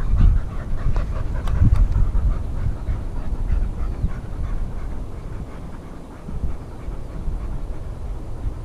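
A spaniel panting quickly and evenly close by, fading toward the end, over a steady low rumble.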